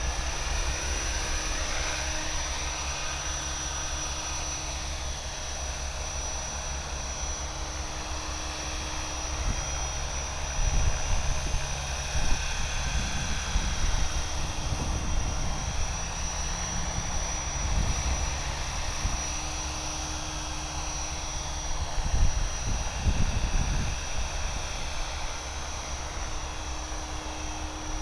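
Align T-Rex 550E electric RC helicopter in flight, its brushless motor giving a steady high whine over the whoosh of the spinning rotor blades. Several bouts of low rumbling from wind on the microphone, the loudest near the middle and a few seconds before the end.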